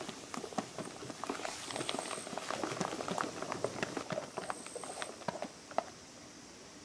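Hand balloon whisk beating fresh cream in a stainless steel bowl: quick, irregular wet slaps and clicks of the wires against the cream and the bowl, the cream close to stiff. The whisking stops just before six seconds in with one sharp click.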